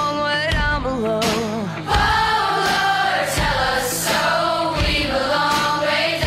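Background rock song: several voices singing together like a choir over a heavy, steady drum beat.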